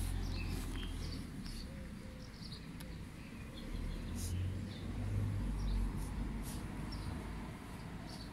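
Small birds chirping in short, scattered calls over a low, uneven rumble of wind on the microphone.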